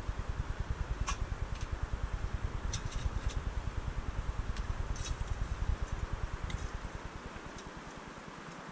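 A few light metal clinks of camping cookware being handled, over a low, rapid pulsing rumble that fades away about seven seconds in.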